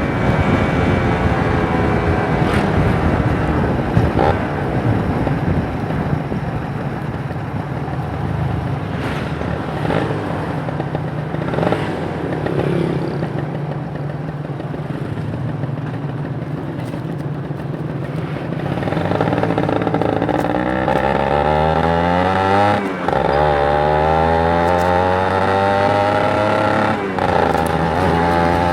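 Kawasaki Ninja 150 RR's two-stroke single-cylinder engine. Its revs fall at first and then hold low and steady for most of the time. From about two-thirds in it accelerates, with the revs rising, dropping briefly at two gear changes, and climbing again.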